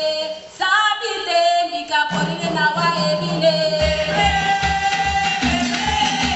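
Live singing with a drum: a voice sings a gliding melody, a low held note comes in about two seconds in, and a drum starts beating steadily, about three beats a second, from about four seconds in.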